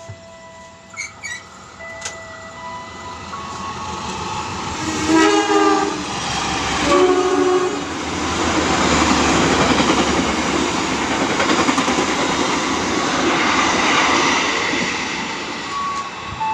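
A passing train's locomotive horn sounds two blasts, about five and seven seconds in. The train then runs by close on the adjacent track with a loud, steady rushing rumble of wheels and cars that fades near the end.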